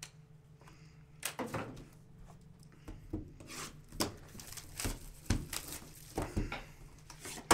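Plastic shrink wrap being torn and crinkled off a sealed box of trading cards, with the box knocked about in the hands: a string of sharp crackles and rustles starting about a second in.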